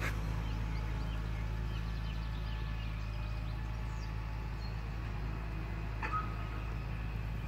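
Steady low drone of a tractor pulling a slurry tanker across a field, with birds chirping over it. The drone cuts off suddenly at the very end.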